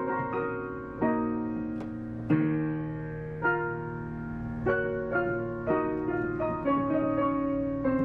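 Digital piano played slowly by hand: chords and single notes struck every half second to second and left to ring.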